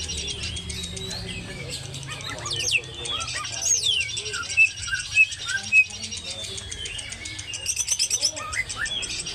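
Caged contest songbird singing during its warm-up: a varied run of whistled and chirped notes that slide up and down, with a few louder sharp notes midway and quick rapid trills near the end.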